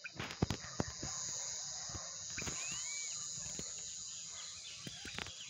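Evening lakeshore chorus: a steady high insect buzz, with a few short whistled bird calls about halfway through. A handful of sharp clicks come in the first second.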